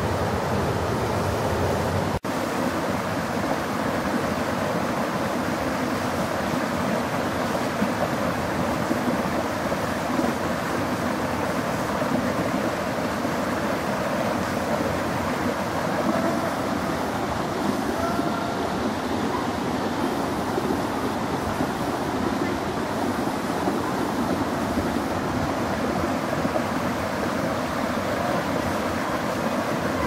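Swollen forest brook rushing in white water over rocks and a fallen log, a steady rush of water with one brief break about two seconds in.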